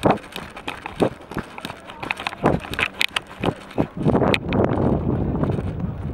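Footsteps of a person running on dry dirt and gravel, heavy thuds about two a second, picked up by the camera being carried.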